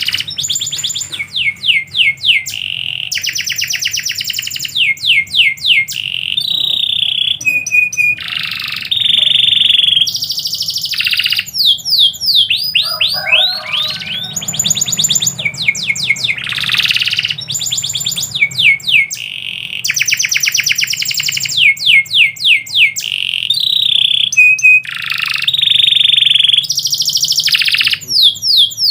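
Domestic canary singing a long, unbroken song of fast trills made of repeated falling notes, mixed with rolls and held whistled notes.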